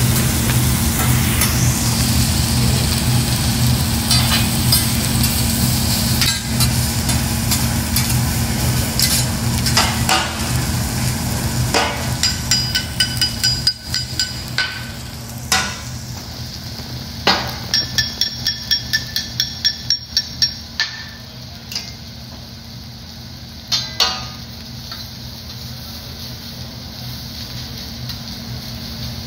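Fried rice sizzling on a steel teppanyaki griddle while metal spatulas scrape and tap on the hot surface. About halfway through comes a quick run of ringing metal taps, then a few more clanks later, over a steady low hum.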